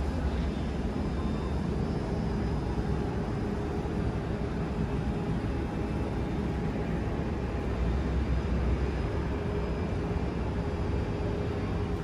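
Steady low rumble of city ambience heard from high above the streets, with a faint steady hum running through it.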